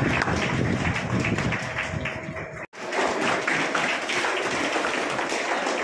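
Audience applause: dense, steady clapping, broken off for an instant about halfway through.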